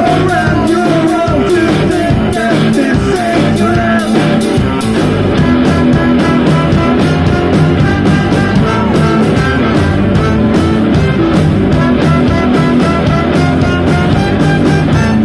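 Live rock and roll band playing loud and steady: electric guitars, a drum kit with cymbals, and a trumpet and trombone horn section, with singing.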